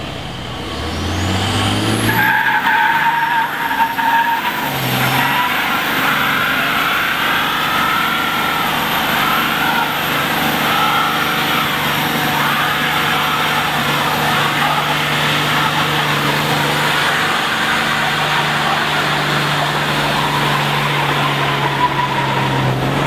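Dodge Ram 2500 pickup doing a burnout: the engine revs up over the first two seconds, then the spinning rear tyres squeal continuously with the engine held high for the rest of the time.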